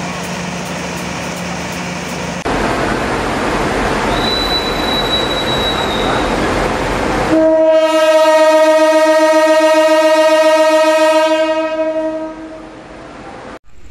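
A CC 201 diesel-electric locomotive's engine noise, then its horn sounds one long, steady blast of about five seconds, starting about seven seconds in.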